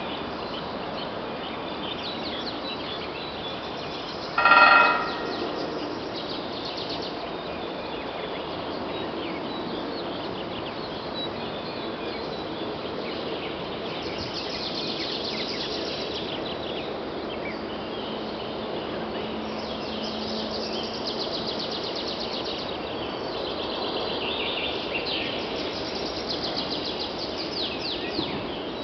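A woodpecker drums on a steel angle-iron crossarm atop a utility pole: one short, loud roll about four seconds in that rings like struck metal. Small birds chirp throughout, more busily in the second half.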